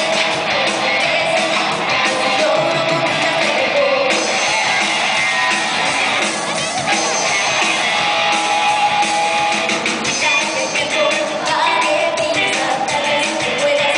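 Live rock band playing: a woman singing into a microphone over electric guitar, keyboard and drum kit, amplified through PA speakers.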